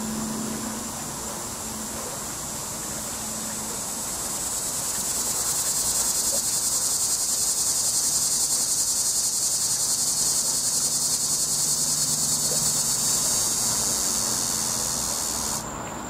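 Cicada singing: a loud, high, rapidly pulsing buzz that swells over the first few seconds, holds, then cuts off abruptly near the end.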